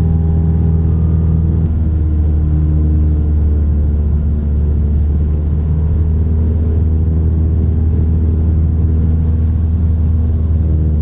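Cessna 172's piston engine and propeller running steadily, a deep hum that shifts slightly in pitch about two seconds in.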